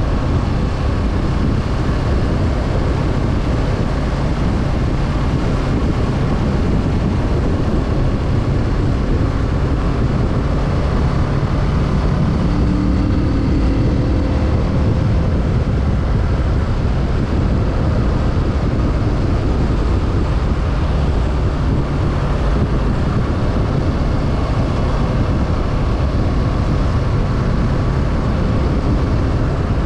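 Kawasaki Z650's parallel-twin engine running under way, mixed with a steady heavy rush of riding wind on the microphone.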